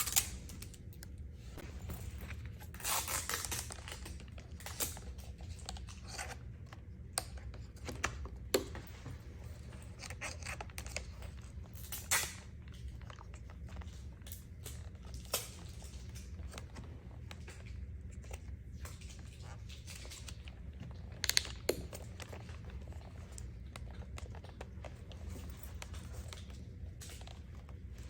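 Handling noise as a replacement laptop display panel is fitted into the lid: scattered light clicks, taps and rustles, a few sharper ones, over a low steady hum.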